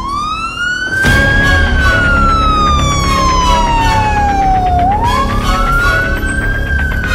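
Emergency vehicle siren wailing: its pitch rises quickly and then falls slowly, twice. It sounds over background music with a steady beat that comes in about a second in.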